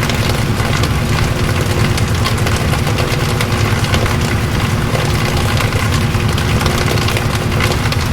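Washing machine running: a steady motor hum with a continuous fast rattle.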